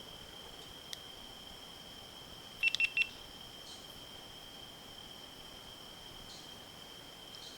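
Crickets trilling in one steady high, unbroken note over a faint background hiss. Three short, sharp high-pitched beeps come in quick succession about three seconds in.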